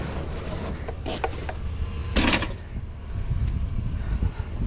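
Scrap being handled and shifted: a few light knocks about a second in, then a louder rattling clatter about two seconds in, over a steady low rumble.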